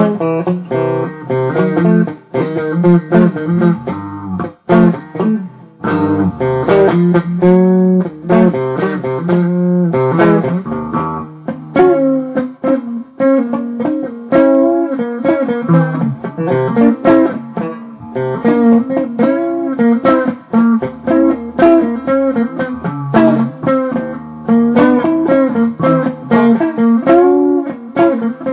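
Blues guitar music: a busy line of quickly plucked notes over lower bass notes.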